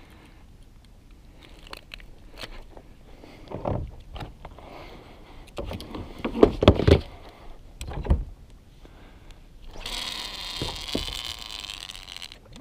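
Knocks, taps and scrapes of a fish and a pair of pliers being handled against a plastic kayak hull as a caught Spanish mackerel is unhooked and put away, with the loudest knocks a little past the middle. Near the end comes about two seconds of steady hiss.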